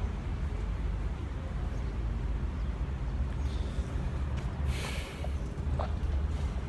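Steady low rumble of outdoor city background noise, with a short hiss about five seconds in.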